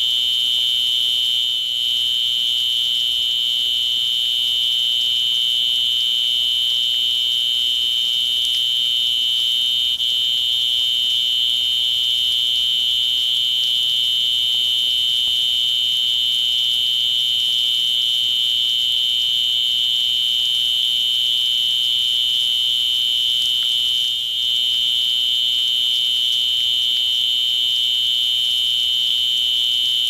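Fire alarm horn sounding continuously, a steady high-pitched electronic tone. It is the waterflow alarm, set off by the flow switch as the sprinkler discharges.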